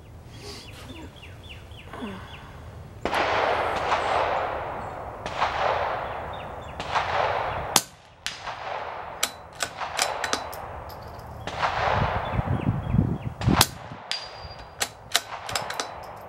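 A rimfire rifle fires a string of shots at targets 100 yards off, with metallic clangs and rings among them.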